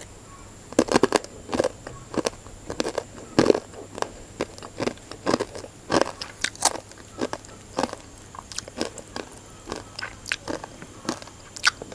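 Close-up chewing and crunching of the crispy fried topping ('kriuk-kriuk') in a bowl of Mie Sedap instant noodles, irregular crunches one or two a second.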